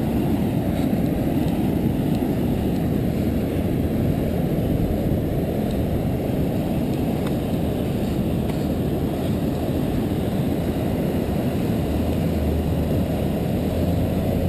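Wind rumbling steadily on the microphone of a fast-moving action camera, with a low hum from the towing car's engine joining near the end.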